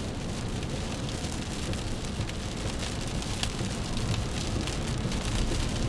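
Steady rain hissing on a car, heard from inside it over a low rumble of road and engine noise, with a few faint ticks of drops.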